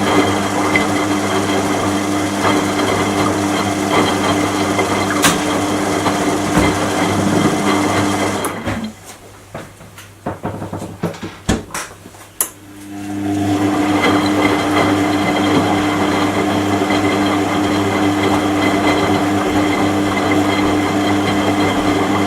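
Washing machine motor running with a steady hum, stopping about eight seconds in for a few seconds of clicks and knocks, then starting up again and running steadily, as in the stop-start turning of a wash cycle.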